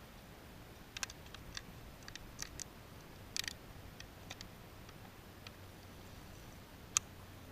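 Faint scattered clicks and light taps over a quiet background, with a few clustered together about three and a half seconds in and one sharp click about seven seconds in.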